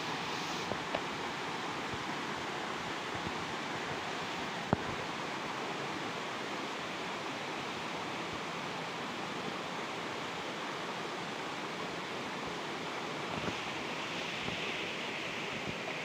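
Steady rushing wind noise, with one sharp click about five seconds in and a brighter hiss in the last few seconds.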